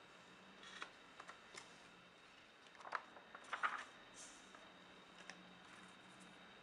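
Faint handling of a sheet of origami paper on a tabletop: a few soft crinkles and taps, loudest around three to four seconds in, over a faint steady hum.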